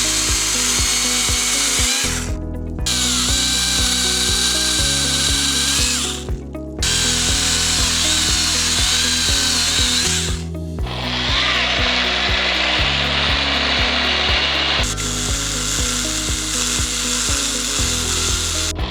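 Altuna AB100 cordless battery chainsaw cutting wood, its electric motor whine wavering in pitch as the chain bites. The saw sound breaks off abruptly about two and six seconds in, over background music with a steady beat.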